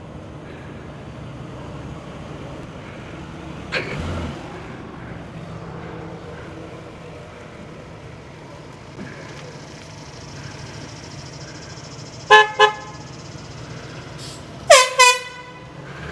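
Handheld air horn blasts: two very short toots, then a couple of seconds later a louder blast whose pitch sags as it cuts off. These come after a long stretch of low background noise broken only by a single knock.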